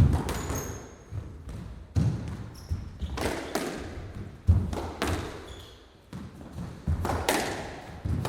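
Squash rally: a squash ball struck by rackets and hitting the court walls, about ten sharp smacks at irregular intervals, each ringing on in the echo of the enclosed court, with a few faint high squeaks between.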